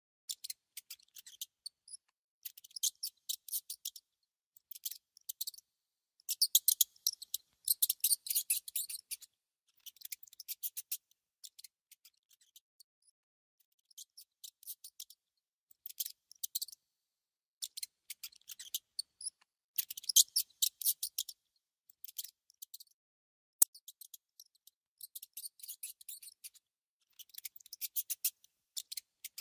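Mouse gnawing and nibbling at food: bursts of rapid, crisp clicking with short pauses between them, and one sharp click about two-thirds of the way through.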